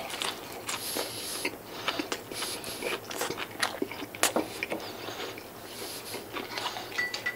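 A person chewing and biting fried chicken karaage close up, with many irregular crunches and mouth sounds. A sharp knock about four seconds in as a small dish is set down on the table.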